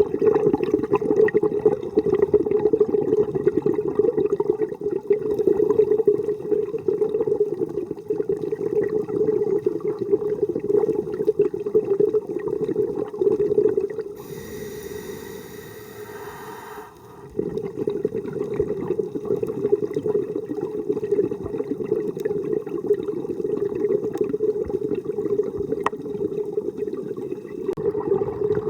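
Scuba regulator breathing heard underwater: a long run of gurgling exhaust bubbles, broken about halfway by a quieter hissing inhale, then bubbling again.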